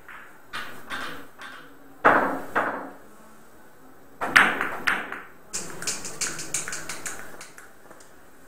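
Billiard balls on a carom table: a few faint taps, then sharp knocks of balls striking each other and the cushions about two and four seconds in, followed by a quick run of lighter clicks that dies away after two seconds or so.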